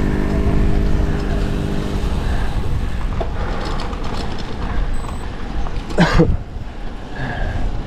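A motor vehicle engine runs steadily under road and wind rumble, with a clear engine hum for the first two seconds. A short, sharp burst of noise cuts through about six seconds in.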